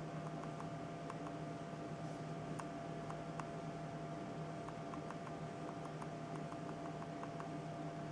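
Faint steady hum and hiss with a constant tone, dotted with scattered light clicks and taps from a mobile phone being handled.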